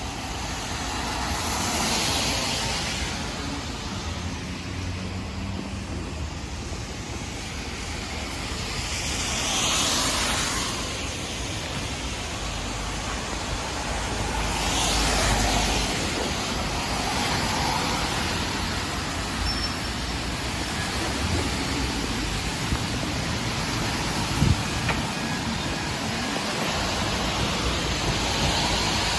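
Cars passing on a rain-soaked street, their tyres hissing on the wet asphalt over a steady hiss of rain and traffic; three passes swell and fade, about 2, 10 and 15 seconds in. A short sharp tick comes late on.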